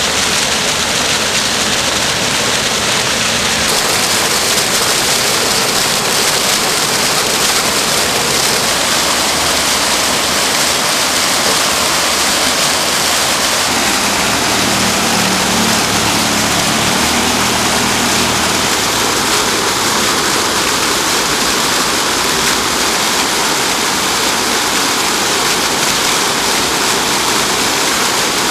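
Fountain water splashing and falling into a basin: a steady, dense rushing and spattering that shifts in texture a few seconds in.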